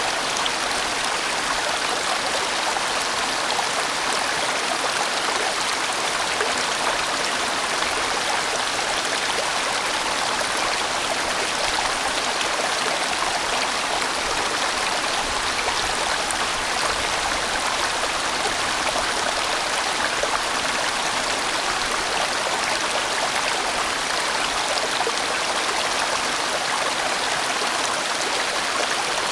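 A sizeable valley stream flowing and churning over a broad, winding course: a steady, even rush of water that never pauses.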